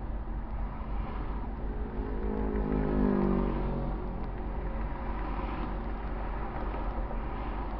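Steady freeway traffic noise, with one vehicle passing close about three seconds in, its pitch falling as it goes by.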